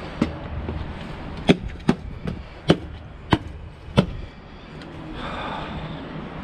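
Footsteps in boots on a gritty, salted concrete sidewalk: a series of sharp clicks, about half a second to a second apart.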